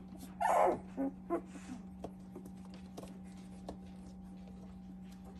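Two-week-old puppies whimpering and squealing: one louder squeal about half a second in, then a few short squeaks, fading to faint small sounds over a steady low hum.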